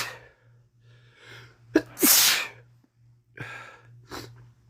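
A man with a head cold sneezing, one of a run of sneezes in a row: the tail of one sneeze at the start, then a drawn-in breath and another loud sneeze about two seconds in, followed by quieter breaths.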